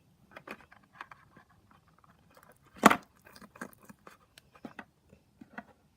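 A stick stirring borax-and-glue slime in a bowl: small irregular sticky clicks and taps, with one louder sharp knock about three seconds in.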